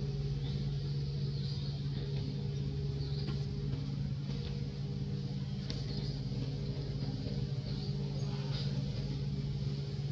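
A steady low mechanical hum like a running engine, with faint short high chirps about once a second.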